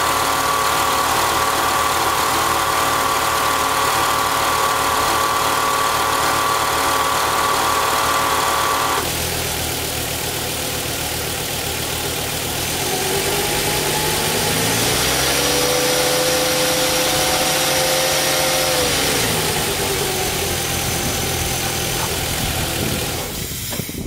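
1997 Volvo engine idling with the A/C on, a steady whine or hum from the A/C that cuts off abruptly about nine seconds in when the A/C is switched off. The engine then idles more quietly, is raced with its pitch rising, held for several seconds, and falling back to idle.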